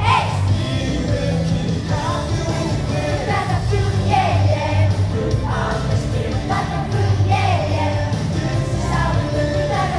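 A song with singing over a band accompaniment with a steady bass.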